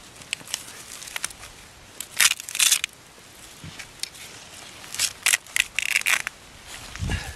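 Irregular scraping, rustling and crunching as a Trac Grabber traction device's nylon strap is worked through a snowy wheel and pulled tight in its buckle, with snow crunching under the kneeling worker. The loudest bursts come about two seconds in and again about five seconds in, and a dull thump comes near the end.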